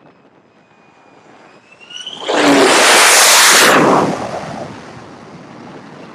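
F-35C Lightning II's single F135 turbofan jet engine passing low overhead: a rising whine builds to a very loud roar about two seconds in, holds for about a second and a half, then fades away.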